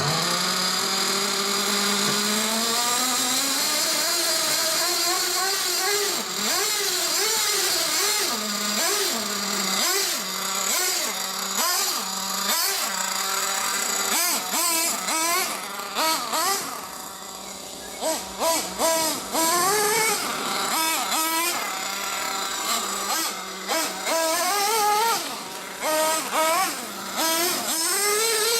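Nitro RC car's RB K10 glow engine running under throttle, rising in pitch over the first few seconds as the car takes off, then revving up and down again and again as the throttle is worked.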